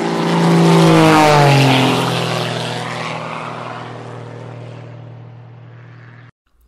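Propeller airplane flying past: a loud engine drone that drops in pitch as it passes about a second and a half in, then fades away and cuts off suddenly near the end.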